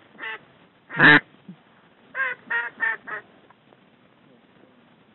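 Specklebelly (white-fronted goose) yelping: short, high, pitched calls, with one loud call about a second in and a quick run of four about two seconds in.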